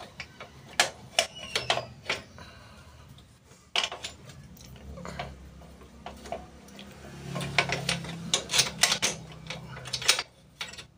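Scattered light metal clicks and knocks as a motorcycle drum brake hub is handled and worked into place inside a spoked wheel rim, coming thicker toward the end.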